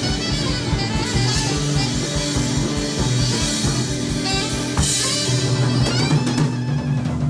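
Rock band playing live: drum kit driving a fast, even beat under guitar and sustained bass notes.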